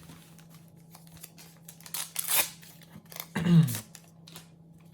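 Foil card packet being torn open and its cards rustled: a short rip about two seconds in and a louder one around three and a half seconds, the second with a brief murmur of a voice.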